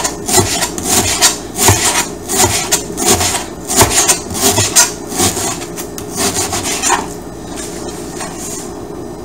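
Kitchen knife slicing thin pieces off a block of still-frozen pork on a plastic cutting board, a cutting stroke repeated two or three times a second. The strokes stop about seven seconds in.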